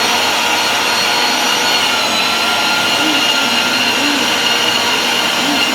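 Electric blender running steadily at high speed, its motor whining at an even pitch, blending basil into pesto.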